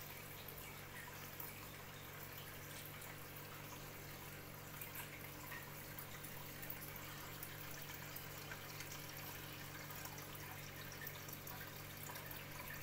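Aquarium filter running: water trickling and dripping over a faint steady hum.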